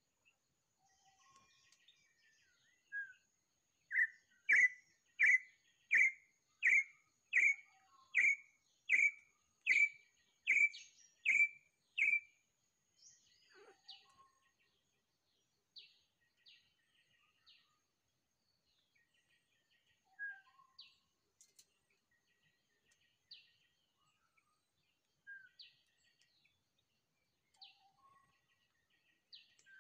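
A bird calling: a run of about a dozen loud, evenly spaced notes, about one and a half a second, then scattered fainter chirps.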